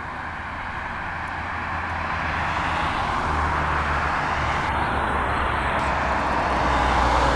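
Car approaching along the road, its road noise growing steadily louder and loudest near the end.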